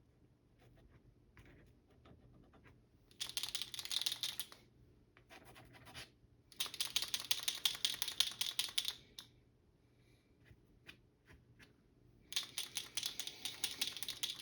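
Birchwood Casey sight touch-up paint pen being shaken, its mixing ball rattling in three bursts of rapid clicks. The pen is being readied so the paint will flow.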